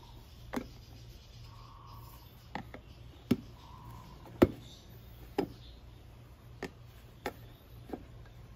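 Metal tire iron and plastic rim protectors knocking and clicking against a chrome scooter wheel rim as the tire bead is levered over it: about eight sharp, irregularly spaced knocks, the loudest about halfway through.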